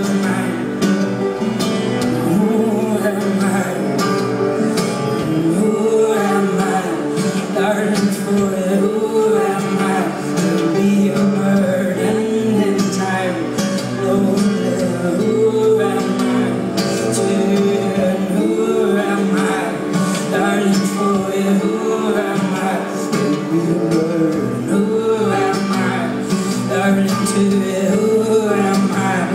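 Live music: a man singing and playing guitar, recorded from the audience in a concert hall.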